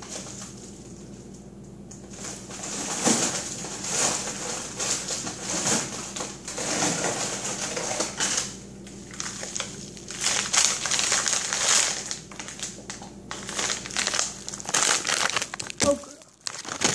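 Rummaging through a side-by-side refrigerator-freezer: plastic food packages crinkling and rustling as items are shifted and pulled about, on and off throughout.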